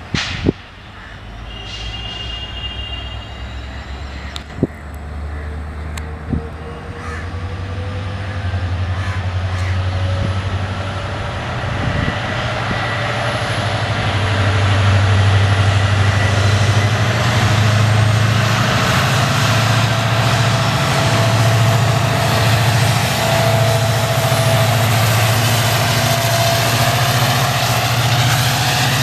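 EMD diesel-electric locomotive approaching, its engine hum growing louder over about fifteen seconds and then staying loud as the train runs past with wheel and rail noise. There are a few sharp clicks in the first few seconds.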